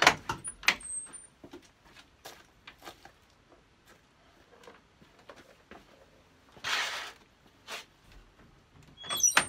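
Wooden shed door being unlatched and knocked open, a sharp click and knocks at the start, then scattered light knocks. A short scraping noise comes about seven seconds in, and near the end more knocks with brief high squeaks as the door latch is handled again.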